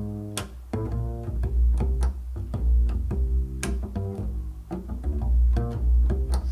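Music played through desktop stereo speakers and recorded by a microphone: a deep bass line with low bowed and plucked strings, punctuated by sharp percussive hits.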